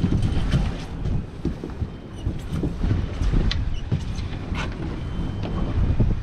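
Wind rumbling on the microphone over water lapping against a boat's hull, with scattered small knocks and splashes as a crab pot line is hauled in by hand.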